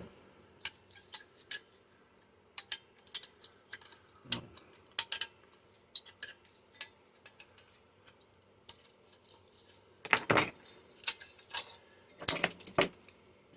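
Scattered metallic clinks and taps of hand tools working the ring magnets off a microwave magnetron, with two louder bursts of scraping clatter near the end.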